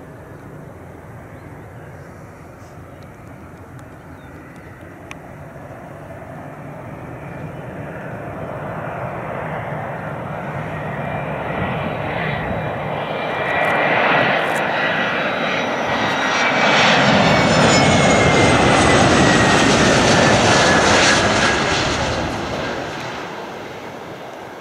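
Boeing 717 on landing approach, its two rear-mounted Rolls-Royce BR715 turbofans growing steadily louder as it nears. A high engine whine drops in pitch as the jet draws level, and the noise eases off near the end.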